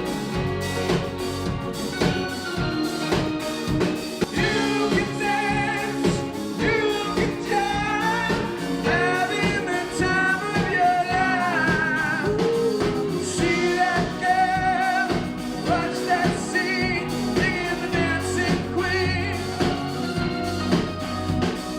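A rock band playing with drum kit, bass and guitar, and a lead vocal singing a melody from about four seconds in.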